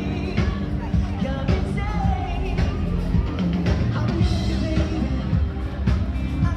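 Loud rock-style music with singing and a steady beat.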